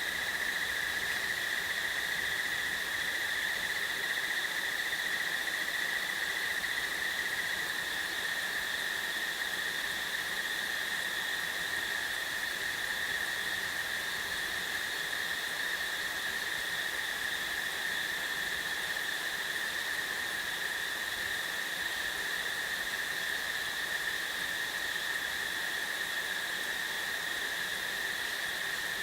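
A steady, unbroken chorus of crickets, a continuous high trill that neither starts nor stops.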